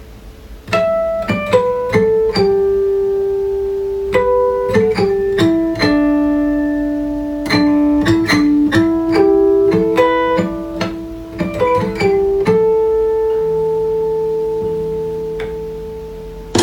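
Acoustic guitar playing a slow single-note melody, each note plucked and left to ring. The last note is held and fades slowly over the final few seconds.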